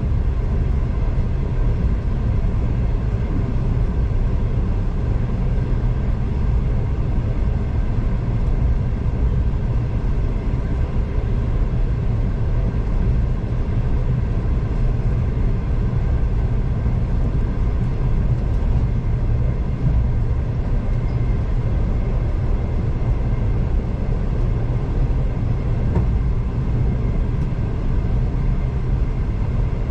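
V/Line passenger train travelling at a steady pace: an even, continuous low rumble of the wheels on the track and the carriage running, heard from on board.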